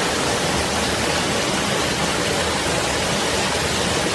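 Shiraito Falls in Karuizawa, many thin streams of water pouring over a wide rock face: a steady rush of falling water.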